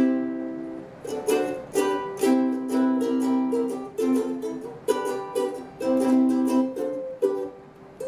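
aNueNue US200 Moon Bird soprano ukulele with a moon spruce top, strummed: a run of ringing chords struck in a loose rhythm about once a second, changing chord as it goes, the last one fading out just before the end.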